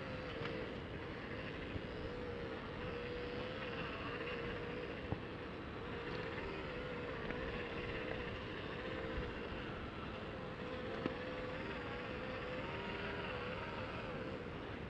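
1/24-scale RC crawler's electric motor and gears whining steadily, the pitch wavering up and down as the throttle changes, over a bed of tyre and ground noise. A sharp click sounds twice, about five and eleven seconds in.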